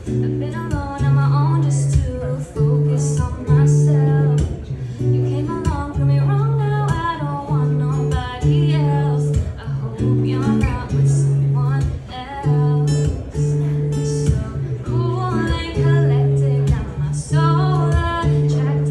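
A woman singing a slow pop song while strumming an acoustic guitar in a steady, repeating chord pattern.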